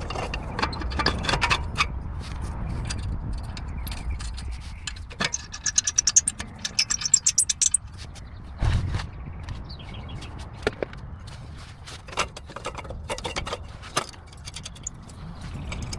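Metal clinks, knocks and scraping of an exhaust pipe and its fasteners being fitted back into place, with a quick run of rapid clicks near the middle and a dull thump a little after.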